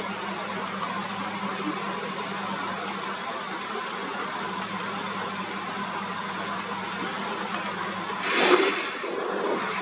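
A steady low engine-like hum, like a motor idling. Near the end comes one brief loud rushing burst.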